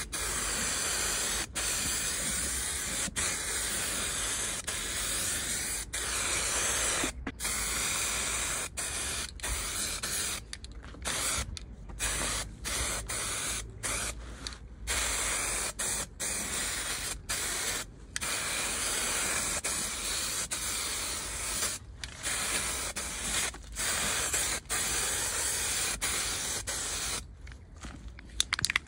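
Aerosol can of spray primer hissing in repeated passes as another coat goes on, broken by frequent brief pauses where the nozzle is let go.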